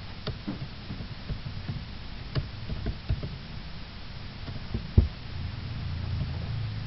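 Irregular sharp clicks and knocks over a low hum, with one sharper knock about five seconds in.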